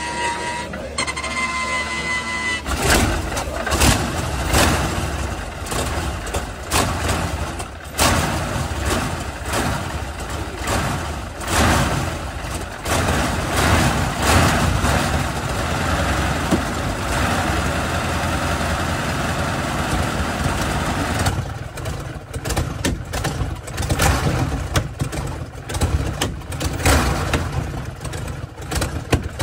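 Brutus's 47-litre BMW V12 aircraft engine starting from cold. A steady high whine runs for the first couple of seconds; then the engine catches and runs roughly, revving unevenly, with irregular sharp cracks from its short open exhaust stubs, which spit flames near the end.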